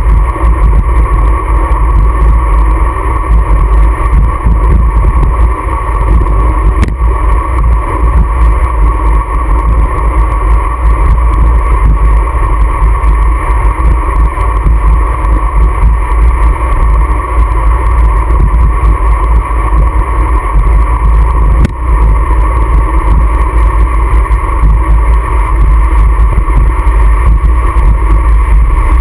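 Wind rumbling steadily and loudly on the microphone of a handlebar-mounted GoPro on a moving road bike, with two faint clicks partway through.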